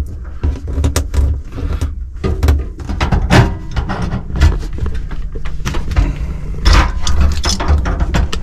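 Irregular metal clicks and scrapes of a wrench working the threaded gas hose fitting under a gas tankless water heater, over a steady low rumble.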